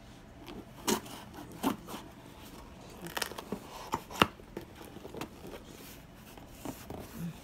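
Small knife slitting packing tape on a cardboard shipping box while the box is handled: scattered short scrapes, taps and tearing sounds, the sharpest about four seconds in.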